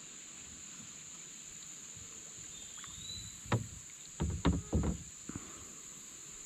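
A handful of knocks and thumps on a plastic kayak hull, about three and a half to five seconds in, as gear is handled aboard. Under them runs a steady high drone of insects.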